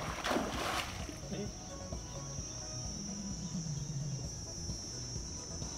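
Insects droning in one steady high-pitched shrill, with a brief rush of noise in the first second.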